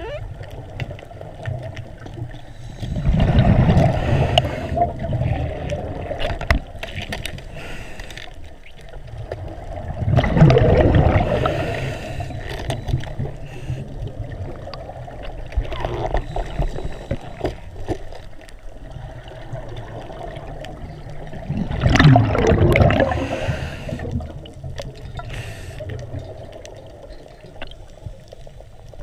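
A scuba diver's exhaled bubbles from the regulator, heard underwater: three bubbling rushes several seconds apart, near the start, in the middle and later on, one for each breath out.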